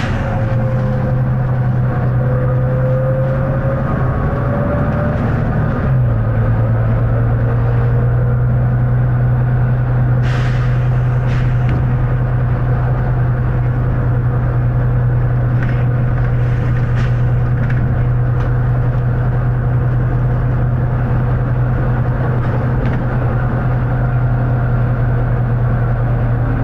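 Volvo B9TL bus engine running with a steady low drone that shifts slightly about six seconds in, with a few short hisses of air, the clearest about ten seconds in.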